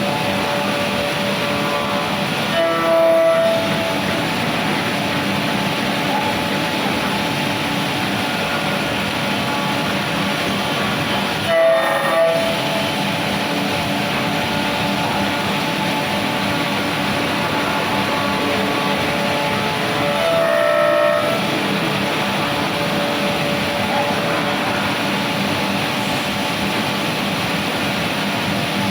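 Bacci Artist TGV 2600 CNC machining center milling wood: a steady, noisy run of spindle and cutting sound. About every nine seconds it swells briefly into a louder, pitched whine.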